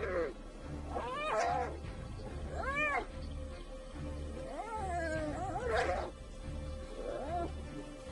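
Spotted hyenas crying out in a fight: a series of pitched yells and squeals, each rising and falling, repeating every one to two seconds. Beneath them runs background music with a low pulsing beat.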